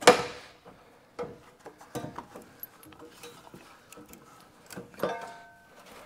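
Knocks and plastic-on-metal clatter as the front bumper is lifted up off its mounting brackets, with a sharp knock at the start and a short metallic ring about five seconds in.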